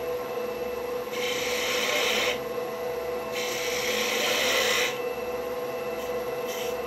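Wood lathe running with a steady hum while a turning tool makes two cutting passes on a spinning black walnut blank, each a hissing shave lasting about a second or so.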